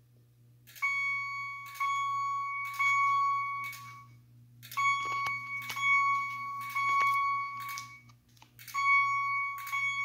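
Simplex TrueAlert 4906-9136 ceiling-mount chime strobe chiming in code 3 (temporal) pattern: three ringing chimes about a second apart, then a pause, repeated. The third round starts near the end.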